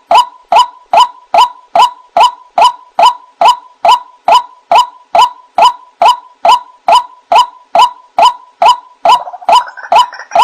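White-breasted waterhen (ruak-ruak) lure recording: a steady, rhythmic string of short, clipped 'wak' calls, about two a second, each dropping slightly in pitch. Near the end a denser tangle of overlapping calls begins to build.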